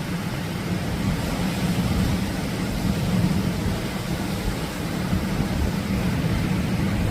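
Atlantic surf: waves breaking in a steady, unbroken rush with a deep low rumble.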